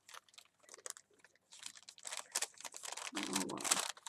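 Crinkled paper being unfolded and smoothed out by hand: irregular crackling and rustling, busiest in the second half.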